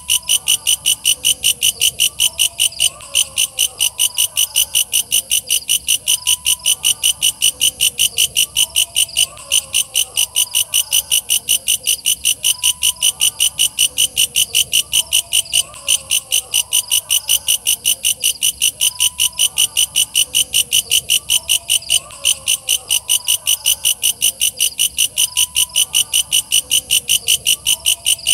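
Walang kecek katydid calling: a loud, fast, even train of high pulses, about three to four a second, broken briefly every six seconds or so.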